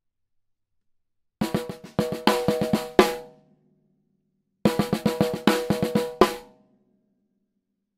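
Snare drum played with sticks: soft ghost strokes in quick triplets between louder accented strokes. The pattern is played twice with a pause between, and each phrase ends on a loud accent that rings out.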